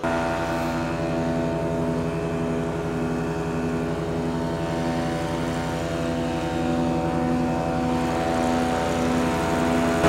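An engine running steadily at constant speed, its hum throbbing evenly about twice a second.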